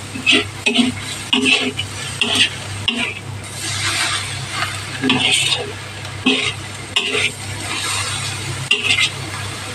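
A utensil stirring and scraping katuray leaves in a pan over heat, in irregular strokes about once or twice a second, over a light sizzle. The pan is cooked dry, so it scrapes and sizzles rather than bubbling; a low steady hum runs underneath.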